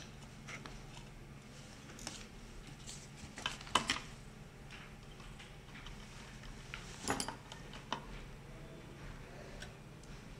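Scattered light clicks and metallic clinks of small tools and a hard drive being handled, the two sharpest about four and seven seconds in, over a steady low hum.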